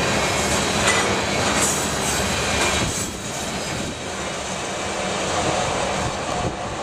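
Freight train cars rolling past on the Canadian Pacific line, their wheels clacking over the rail joints in a steady rumble that eases a little about three seconds in.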